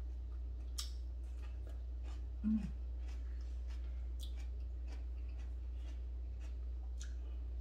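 Hand-eating sounds: faint scattered wet clicks of chewing and fingers picking at rice, over a steady low hum. A brief hummed 'mm' comes about two and a half seconds in.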